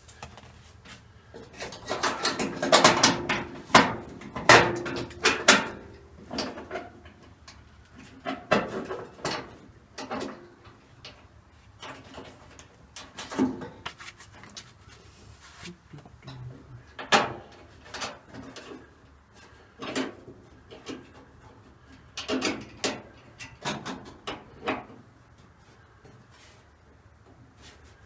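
Irregular knocks and clatters of tools and parts being handled during hands-on work on a car: a dense run of them over a few seconds near the start, then scattered single knocks.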